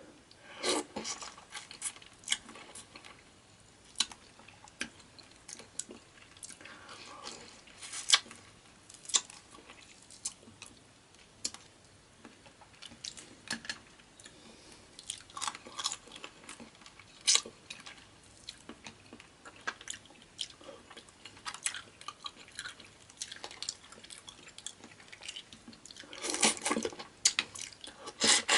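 A person chewing and crunching seafood boil, with many sharp clicks and crackles scattered throughout and a dense spell of crunching near the end.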